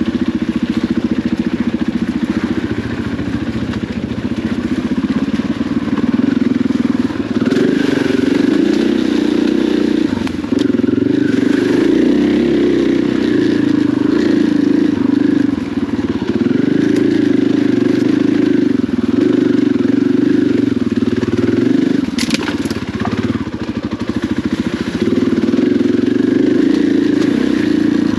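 KTM 500 EXC dirt bike's single-cylinder four-stroke engine running on the trail, the throttle opening and closing every few seconds so the engine note rises and falls. A sharp knock sounds about three-quarters of the way through.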